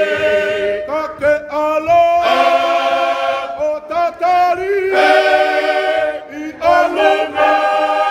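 Tongan church choir singing a cappella, men's voices prominent, in long held chords with short breaks between phrases.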